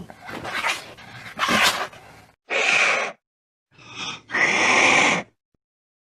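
A cat screeching: five short screeches in a row, the last one the longest at about a second.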